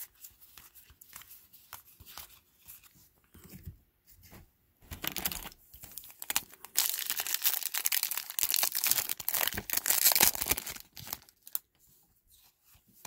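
Foil trading-card pack wrapper being torn open and crinkled, loud crackling from about five seconds in until about eleven. Before that, soft clicks of trading cards being flicked through by hand.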